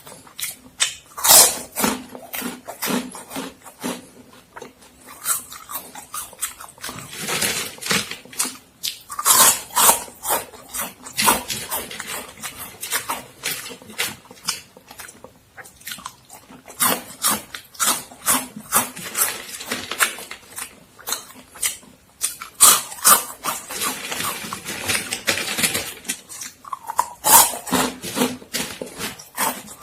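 Close-miked crunching and chewing of Momogi extruded corn stick snacks: rapid clusters of sharp, crisp crunches that come in bursts with short lulls between bites.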